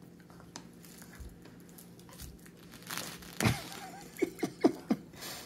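Dog gnawing on a chew toy, with faint crunching and clicks. About three and a half seconds in comes a louder vocal sound sliding down in pitch, then four quick short sounds, each dropping in pitch.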